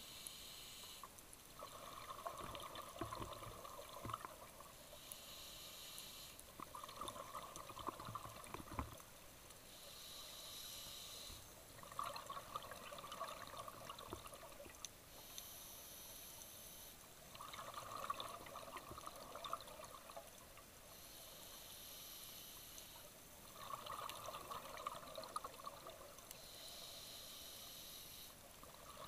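Scuba diver breathing through a regulator, heard underwater: a short hiss on each inhale, then a longer stretch of bubbling on the exhale. The cycle repeats about every five seconds, six breaths in all.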